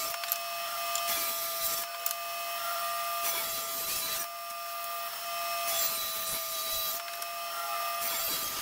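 SawStop table saw ripping a rough-sawn board: a steady motor and blade whine under the hiss of the blade cutting, swelling and easing a little as the board is pushed through.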